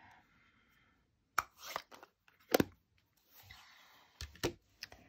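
Crafting supplies being handled on a desk: several sharp taps and clicks, the loudest about halfway through, between soft rustling of paper.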